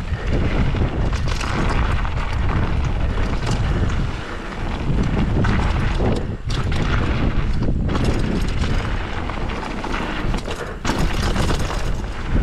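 Wind buffeting the microphone of a bike-mounted camera, over tyres rolling and crunching on loose gravel and the rattle of an e-bike descending a downhill trail, with a few brief lulls.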